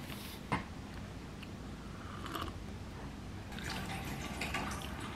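Faint sounds of someone eating at a table: a light knock about half a second in, then soft scattered clicks and small mouth and handling noises.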